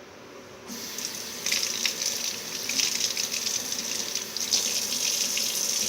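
Bathroom sink tap turned on about a second in, water running and splattering into the basin as the cleaned bearings are rinsed under it.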